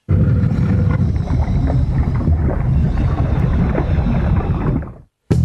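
Loud, deep rumbling noise with faint crackles, starting abruptly, thinning out and cutting off about five seconds in.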